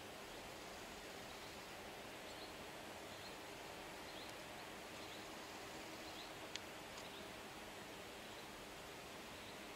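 Quiet outdoor ambience: a steady hiss of breeze in the trees, with faint high bird chirps every second or so and a single small click about six and a half seconds in.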